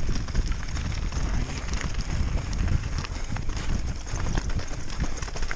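Mountain bike descending fast over rough ground, heard from an onboard camera: wind buffeting the microphone as a heavy rumble, with the frame, chain and tyres rattling and knocking irregularly over the terrain.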